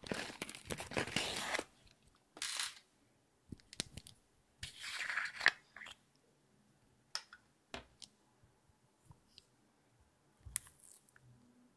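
Close-up handling sounds from a small zippered makeup pouch: rustling and zipper noise for the first second and a half, then short rustles. In the second half, scattered light clicks and taps from a small clear makeup jar and a wooden stick, with quiet stretches between.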